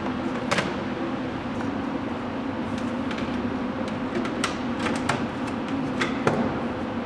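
Scattered sharp clicks and light knocks, about half a dozen at irregular times, as of small tools and metal parts being handled, over a steady mechanical hum.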